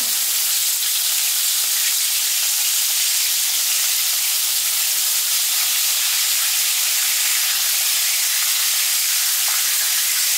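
Flour-dusted smelts frying in hot vegetable oil, a steady sizzling hiss.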